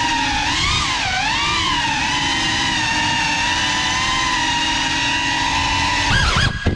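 Brushless motors and ducted propellers of a Geprc Cinelog 35 cinewhoop FPV drone, heard from its onboard camera as a steady, loud whine. The pitch wavers with throttle about a second in. Near the end the whine swings wildly up and down with a couple of knocks as the drone crashes.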